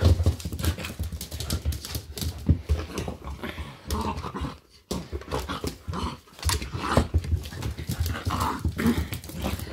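Eight-week-old English Springer Spaniel puppies play fighting, with little growls and brief cries among a dense run of irregular scuffles and knocks.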